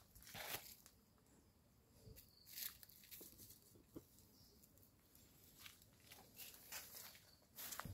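Near silence, broken by a few faint, scattered short rustles.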